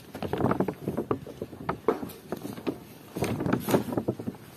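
Irregular rustling and knocking from a handheld phone being carried while walking, its body rubbing and bumping against clothing, in two busy spells.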